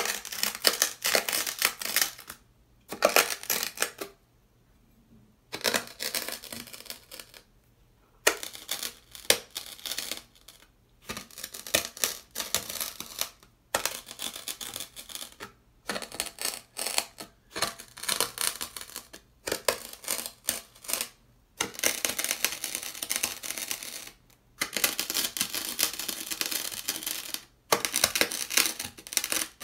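Dry, coarse beach sand on sandpaper crunching as a flat metal blade presses and scrapes through it, in runs of dense crunching separated by short pauses, with a longer lull about four to eight seconds in. Near the end a hand presses into the sand.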